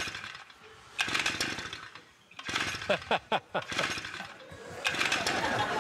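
A pull-start engine being cranked by its cord several times, spluttering without catching, so it fails to start. A spread of audience laughter rises near the end.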